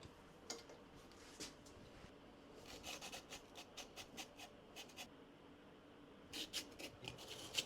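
Faint, irregular scratchy ticks in two clusters, the second near the end: a surface grinder's wheel lightly grazing the cast iron table as it is brought down to start a cut.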